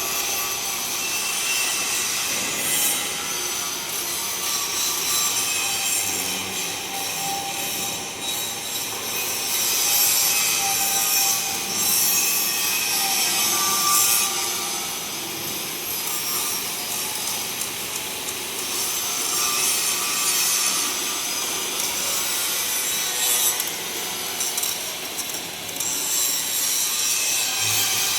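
Angle grinder grinding a steel hand railing: a continuous high, gritty hiss that swells and eases as the disc is worked along the metal.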